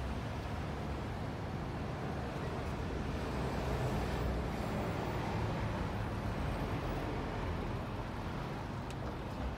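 Steady ambient noise with a low rumble underneath.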